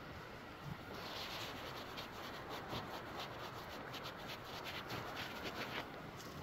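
A scratchy rubbing noise made of rapid irregular scrapes, starting about a second in and stopping abruptly after about five seconds.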